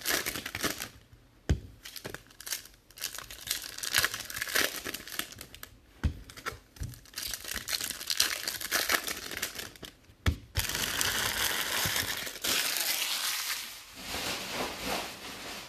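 Foil trading-card pack wrappers crinkling and tearing as packs are ripped open by hand, with three sharp taps along the way.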